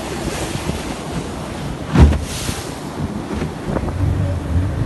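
Rushing surf and spray along the hull of an open motor launch, with wind buffeting the microphone. A single loud thump comes about two seconds in, and the boat motor's low hum grows stronger near the end.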